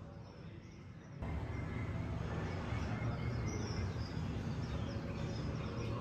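Recorded birds chirping, played back by a bird-exhibit display. The recording comes on suddenly about a second in, with many short, high chirps over a steady low rumble and hiss.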